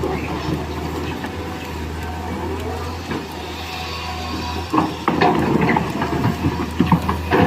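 Motor of a miniature toy excavator humming steadily as it digs sand, with irregular clicks and scraping that grow louder from about five seconds in.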